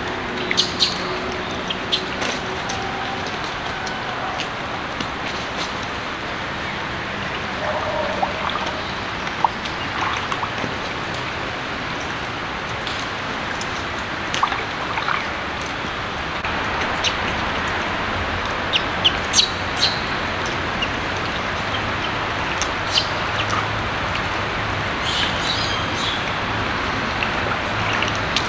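Outdoor ambience: a steady hiss with scattered short clicks and occasional brief bird chirps, and a low hum joining about halfway through.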